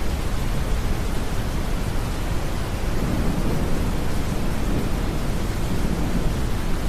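Steady deep brown noise blended with rain hiss, with a low, distant roll of thunder swelling about three seconds in and fading out about three seconds later.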